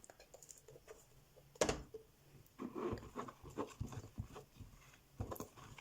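A spatula stirring a thick, sticky slime mixture of glue and add-ins in a jar, giving scattered squelching and scraping noises, with one sharp knock about a second and a half in.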